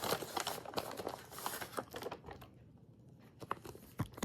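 Packaging crinkling and tearing as a small gift bag is opened by hand: a dense crackle for about two seconds, then quieter, with a few separate sharp crinkles near the end.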